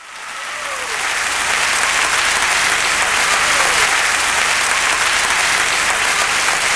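Applause from a large crowd, fading in from silence over the first second or so and then steady.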